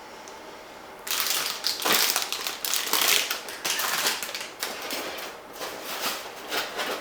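Packaging being handled and unwrapped: irregular rustling and crinkling with small clicks, starting about a second in and thinning out near the end.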